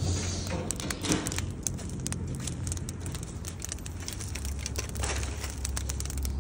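Stick-and-branch wood fire in a mesh metal fire pit crackling, with many sharp pops and snaps over a steady low rumble.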